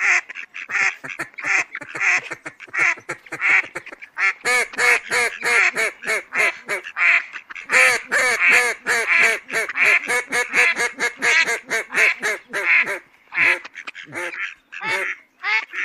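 Mallard ducks quacking in a rapid, continuous series, several calls a second, with a short lull near the end.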